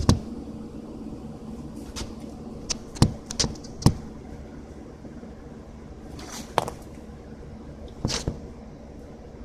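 Scattered sharp metal clicks and knocks, irregular and a few at a time, from a socket wrench and hand tools being handled and fitted on a hitch bolt, over a steady low hum.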